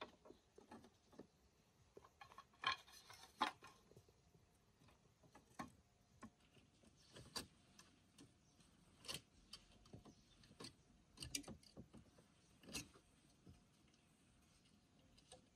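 Faint, irregular light clicks and taps, about a dozen scattered through, the loudest two close together about three seconds in.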